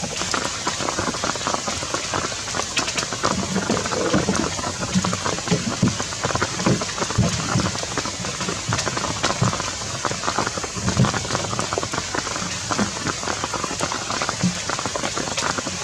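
Steady rain falling on surfaces: a dense hiss full of individual drop hits, with scattered low thuds.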